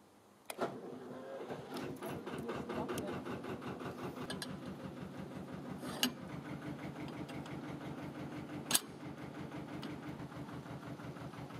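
Narrowboat engine started with the ignition key: it catches about half a second in and settles into a steady, rhythmic idle. Two short sharp knocks sound over it, a few seconds apart.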